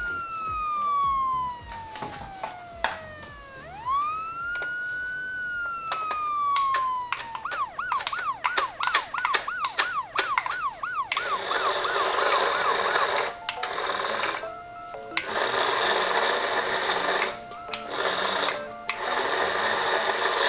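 Electronic siren of a toy ambulance miniature car: two slow wails, each rising and then falling over about three seconds, then a fast yelp of about four sweeps a second. About halfway through, a loud whirring noise from the toy car running takes over, in several stretches with short breaks.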